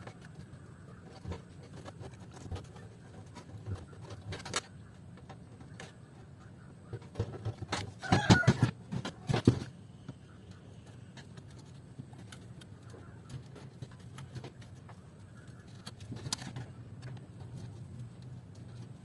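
Screwdriver clicking and scraping against a DVD player's steel housing while prying out its built-in speaker, with scattered single clicks and a louder burst of scraping and rattling about eight seconds in. A low steady hum sits underneath.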